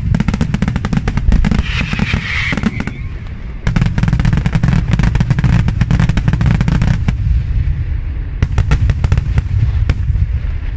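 Daytime fireworks: aerial smoke shells bursting overhead in a dense rapid string of bangs and crackles over a low rumble. There is a short lull about three seconds in, another dense run, then only scattered bangs near the end.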